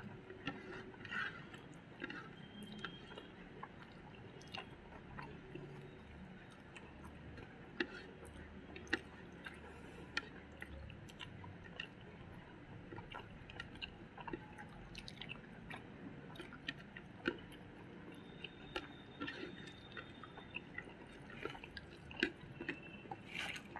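Close-up eating sounds: mouth chewing with short wet clicks scattered throughout, and fingers squishing rice and egg curry against the plate.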